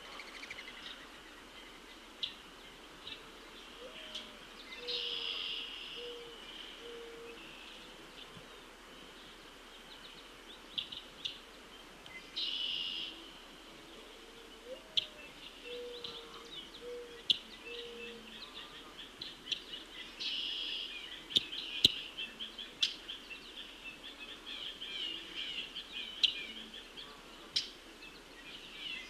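Red-winged blackbird singing its buzzy trilled song about every seven or eight seconds, among scattered short chirps. Twice a low series of about five cooing notes from another bird, the first note rising.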